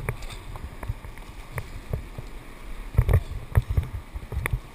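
Splashes, drips and small knocks of a kayak paddle and the paddler's hands working calm water beside the kayak. A cluster of louder low thumps comes about three seconds in.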